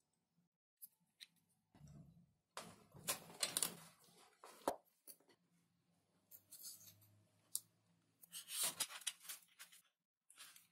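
Intermittent scraping and rustling of hand work on a foam model plane, with a sharp click about five seconds in and another near nine seconds.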